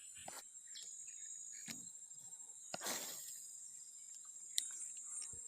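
Steady high-pitched insect chorus, crickets or similar, with a few sharp clicks and a brief rush of noise about three seconds in.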